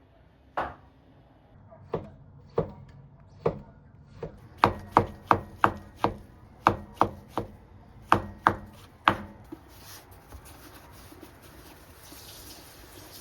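Knife chopping food on a cutting board: about sixteen sharp strokes, spaced out at first and then quicker, stopping about nine seconds in.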